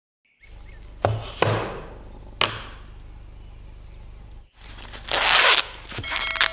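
Fresh corn husks being torn and peeled back by hand: a loud ripping rustle about five seconds in, with more rustling after it. Before that come three sharp knocks, two close together about a second in and one at about two and a half seconds.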